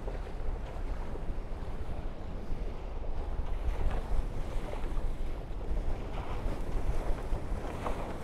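Wind buffeting the microphone in a deep, unsteady rumble over the rush and splash of water past the hulls of a Tornado racing catamaran sailing fast after bearing away.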